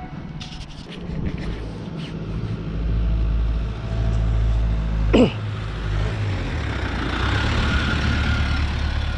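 Ice cream van's engine running as the van drives up and past close by, the chimes silent for the moment. A brief sharp sound about five seconds in.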